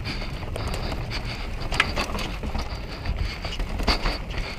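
Mountain bike riding down a dirt trail: wind rushing over the camera microphone and tyres rolling, with the bike rattling and two sharp clacks, one about two seconds in and one near the end.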